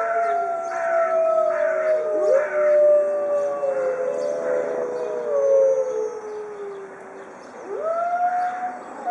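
A pack of Arctic wolves howling in chorus: several long howls at different pitches overlap, each sliding slowly down. The chorus thins about seven seconds in, then a fresh howl rises near the end.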